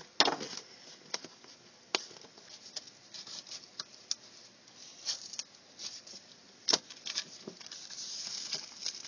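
Pocket knife working into a paper greeting card: scattered small clicks and scrapes of the blade on the card stock, with paper rustling near the end as the layers are pulled apart.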